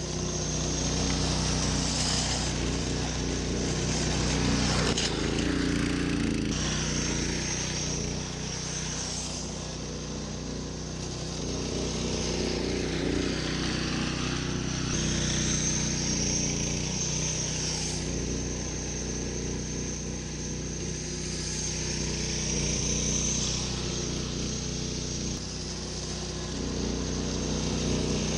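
Small gasoline engine of a walk-behind slice seeder running steadily under load as it cuts through thatch, growing louder and fainter several times as the machine passes back and forth.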